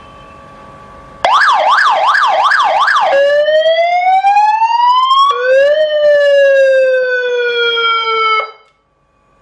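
GAMPRO 7-tone vehicle siren speaker cycling through its tones. After a faint steady hum it starts abruptly and loud with a fast up-and-down yelp, about three sweeps a second. It then switches to a slow rising wail, then a lower tone that falls slowly, and cuts off abruptly.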